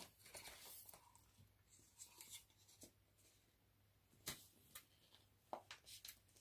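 Near silence with faint, scattered clicks and scratchy rustles, several close together in the last two seconds.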